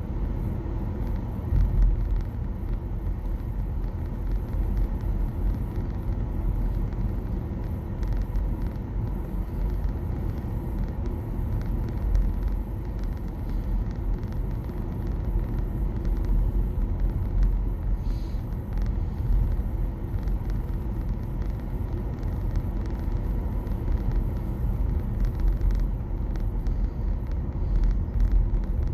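Steady low road and tyre rumble of a 2021 Nissan Leaf electric car driving along, heard from inside the cabin, with no engine note.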